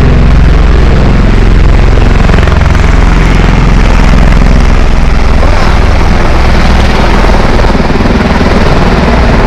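Vehicle engine running loud and close, a steady low rumble under heavy road and wind noise.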